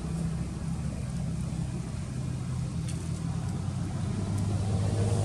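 An engine running steadily, a low hum that grows somewhat louder and changes pitch slightly near the end.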